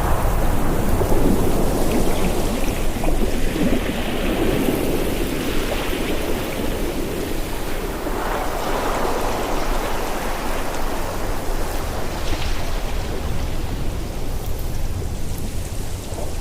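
Ocean surf and wind: a steady rushing noise with a deep rumble underneath, swelling every few seconds as waves come in.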